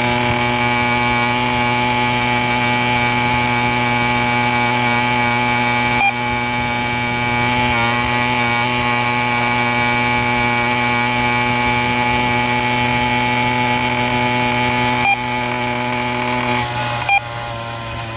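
Motorized bicycle's small engine running at a steady cruising speed with a buzzy, even pitch, easing off and dropping in pitch near the end.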